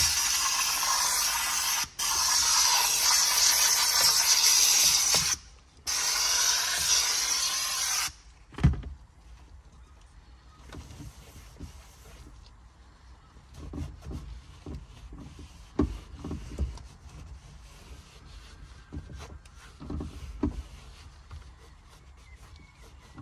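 Handheld steam cleaner's jet hissing steadily onto a steering wheel. It breaks off briefly twice, then stops about eight seconds in. After a thump, a microfibre cloth rubs over the wheel, with soft knocks of hands on the rim.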